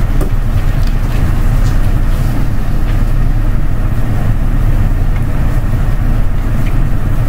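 A loud, steady low rumble of background noise, with a few faint ticks over it.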